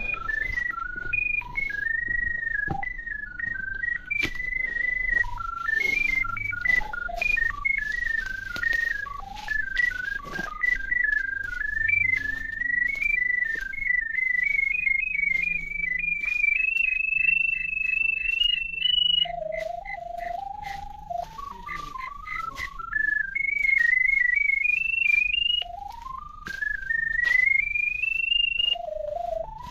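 Drain locator receiver's electronic tone tracking a sonde in a buried drain: a single tone that wanders up and down in pitch as the signal strength changes, with several rising sweeps in the last ten seconds. Scattered clicks and rustles from walking run underneath.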